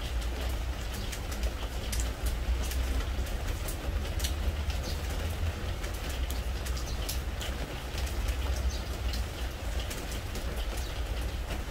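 Spring rain falling on a pressure-treated wood deck: a steady hiss of rain with many sharp drip clicks, over a steady low rumble.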